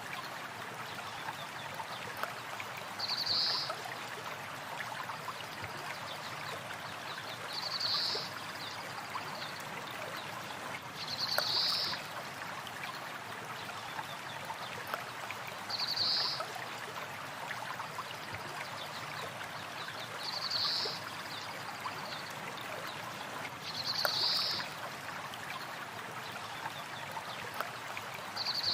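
Steady running water of a river, with a short high bird call repeating about every four seconds.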